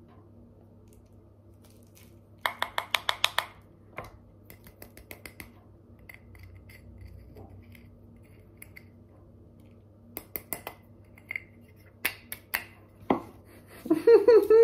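Plastic herb grinder being handled and twisted: a quick run of about nine sharp clicks a couple of seconds in, then scattered lighter clicks and taps, and a brief voice at the very end.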